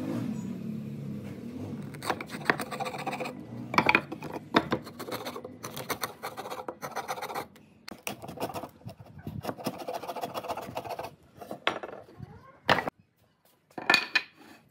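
Hand wood chisel paring and scraping the waste from lap-joint notches in wooden boards, a run of short scrapes and light knocks. Near the end, sharper knocks as the boards are set down on the wooden workbench.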